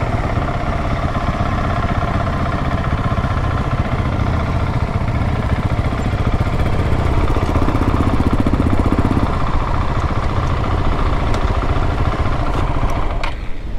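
Motorcycle engine running steadily, with a deep low rumble. It cuts off suddenly near the end.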